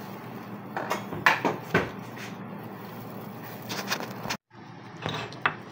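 A few light knocks and clinks of ceramic bowls and ramekins being handled on a kitchen counter, over a steady low hum.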